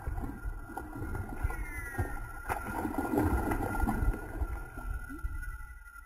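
Hands fiddling with a baitcasting reel close to the microphone: rustling, handling rumble and light knocks, with one sharp click about two and a half seconds in. A short falling whistle comes about one and a half seconds in.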